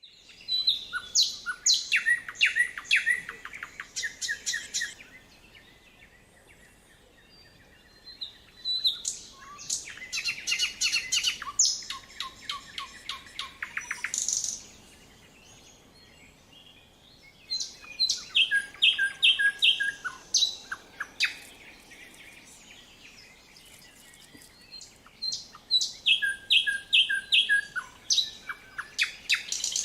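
Songbird singing in spring woodland: four loud phrases of a few seconds each, separated by short pauses, built of rapid clicks and quickly repeated whistled notes.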